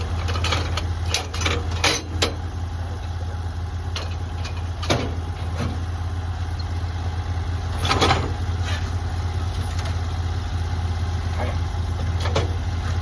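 An engine running steadily at idle, with scattered sharp knocks and clanks over it: a cluster in the first couple of seconds, then single ones around five and eight seconds in and near the end.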